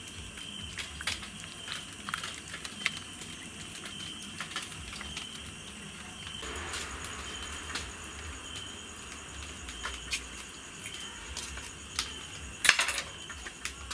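Scattered light clicks and taps of hands and utensils at food preparation, with a short run of louder clicks near the end, over a faint steady high tone.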